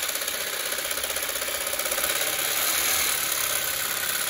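Reciprocating saw (Sawzall) with a Diablo Steel Demon metal-cutting blade running steadily, sawing through a leaf-spring eye bolt seized by rust to its inner metal sleeve.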